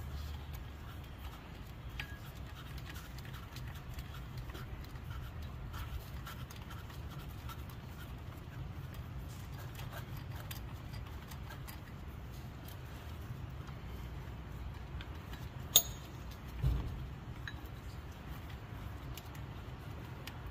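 Hand ratchet and socket working the water pump pulley bolts: faint scattered ticks and metal tool handling over a low steady hum, with one sharp metallic click about sixteen seconds in and a dull thump just after it.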